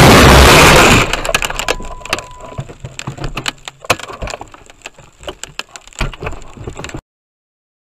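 A loud, distorted rushing noise breaks off about a second in. Scattered sharp cracks and clicks follow, growing fainter, and the sound cuts off suddenly near the end.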